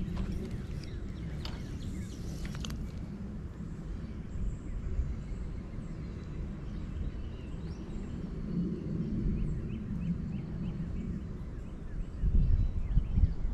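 Wind rumbling on the microphone beside a creek, gusting harder near the end, with faint bird chirps in the background.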